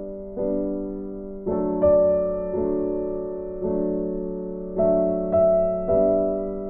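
Gentle background music: slow keyboard chords struck about once a second, each left to ring and fade.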